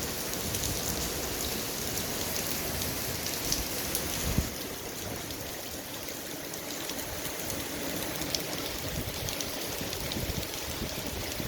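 Steady rain falling, a dense patter of drops hitting a surface. A single louder thump about four seconds in, after which the rain is a little quieter.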